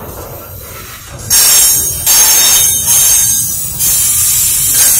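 Double-stack container freight train rolling past close by: a low rumble of wheels on rail, with loud, high-pitched wheel squeal that starts about a second in and comes in repeated surges.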